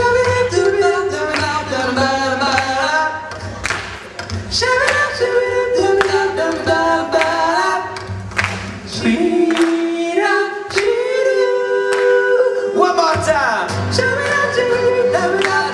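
Singing with no clear words, several voices held over a strummed acoustic guitar. The low guitar part drops out for a few seconds past the middle and then comes back.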